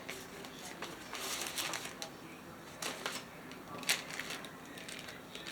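Faint rustling of packaging being handled, with a few short light clicks, the loudest a little under 4 seconds in.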